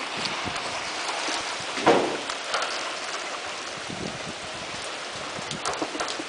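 Heavy rain falling steadily, with many individual drops ticking close to the microphone. A louder splat comes about two seconds in.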